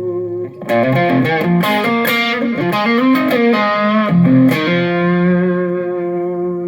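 Electric guitar played through a germanium range-booster pedal, the Mor-Gain Veteran Ranger. A held chord stops about half a second in, a quick run of single picked notes follows, and a final chord is struck and rings until it is cut short near the end.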